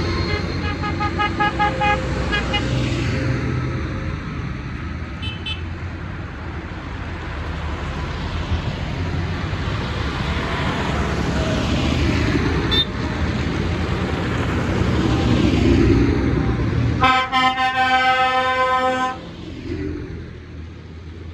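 Farm tractors driving past one after another, engines running and tyres hissing on the wet road. A quick row of horn toots sounds over the first couple of seconds, and a louder horn blast of about two seconds comes near the end.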